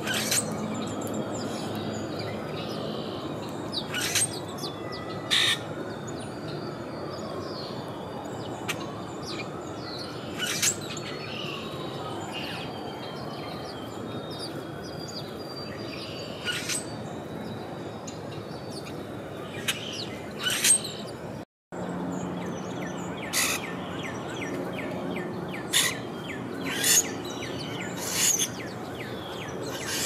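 Songbirds calling: short, sharp chirps and squeaks every few seconds, over a steady background noise. The sound drops out for a moment about two-thirds of the way through.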